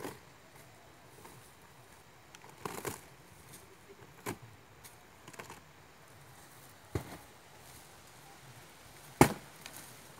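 A series of sharp, short cracks or knocks, irregularly spaced one to two seconds apart; the loudest comes about nine seconds in.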